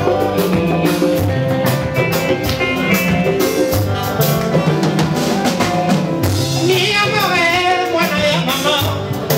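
Live Congolese rumba band playing: electric guitars, bass, drum kit and congas keep a steady beat, and a male voice comes in singing about two-thirds of the way through.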